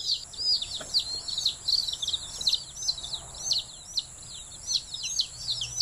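A brood of newly hatched chicks peeping: a dense, continuous stream of high peeps, each sliding downward in pitch, several overlapping every second.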